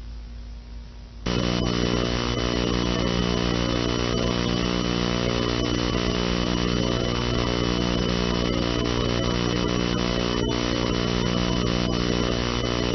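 Faint hiss, then about a second in a loud, harsh electronic buzzing drone starts suddenly and holds steady, with a high whine and scattered crackles over it.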